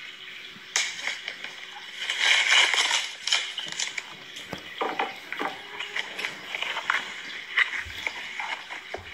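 A cardboard shipping box being opened: packing tape cut and torn, and the cardboard flaps scraping and crackling as they are pulled back, with scattered sharp clicks and taps.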